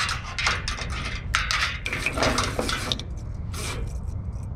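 Quick metallic clicks and clinks from a spinning reel being cranked as braided line is wound onto it, over a low wind rumble on the microphone.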